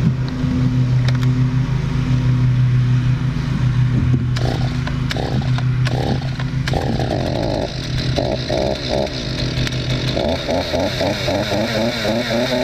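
A new Stihl chainsaw's two-stroke engine running. From about four seconds in there are short bursts of revving that rise and fall, as the engine clears after being flooded on its first start.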